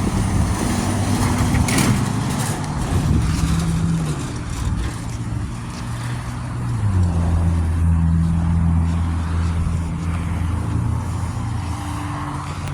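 Car engine and road noise of a moving car, a steady low drone whose pitch shifts about four seconds in and again around seven seconds.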